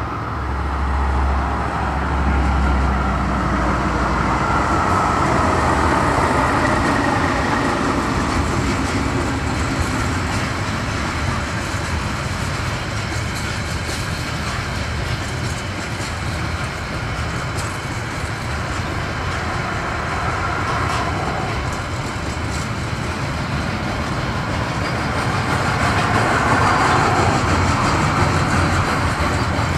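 Freight train passing: the low engine hum of two KiwiRail DL-class diesel-electric locomotives in the first few seconds, then a long rake of curtainsider container wagons rolling by with steady wheel-on-rail noise.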